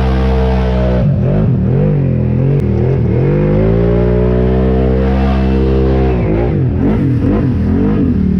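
ATV engine under throttle: steady for about a second, then revving up and down, with a long climbing rev in the middle and quick repeated throttle blips near the end.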